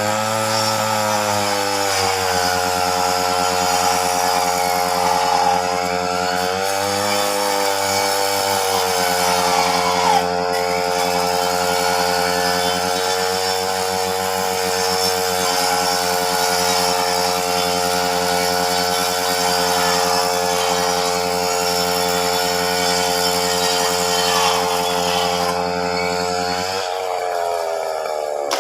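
Chainsaw engine running steadily while cutting tree branches, its pitch dipping briefly at the start and again about seven seconds in, and its note changing near the end.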